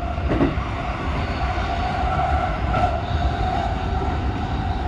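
JR West 223 series 2000 electric train running at speed, heard from the driver's cab: a steady low rumble of wheels on rail with a steady whine from the traction motors as it gathers speed.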